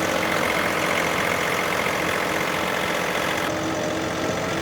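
Portable sawmill's gasoline engine running steadily at a constant speed.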